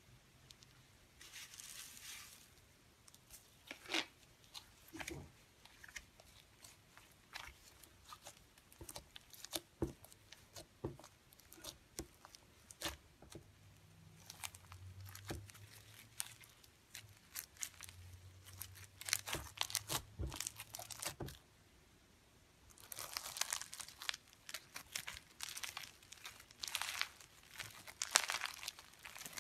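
Fingers squeezing and pressing slime packed with small foam beads (floam), giving irregular crunchy crackles and pops. The crackling comes thickest and loudest near the end.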